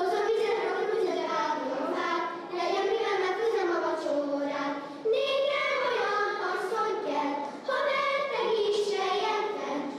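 A girl's solo voice singing unaccompanied into a microphone, in phrases separated by short breaths about every two to three seconds.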